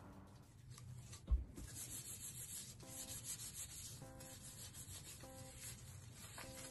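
Hands in disposable plastic gloves rubbing together, a faint soft rubbing, with one dull thump about a second in. Short faint tones repeat about once a second from the middle on.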